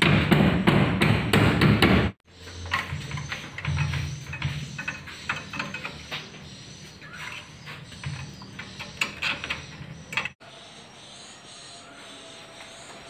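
Hammering, tapping and metal clicks on a wooden door being repaired after it was pried open, with a metal strip worked against the door's edge. Loud knocking at first, then scattered taps and clicks; the sound cuts off abruptly twice and is quieter near the end.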